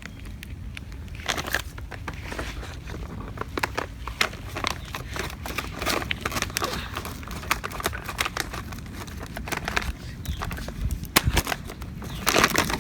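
Crinkling and rustling of a plastic fertiliser bag being handled and opened: a dense, irregular run of small crackles that grows louder near the end.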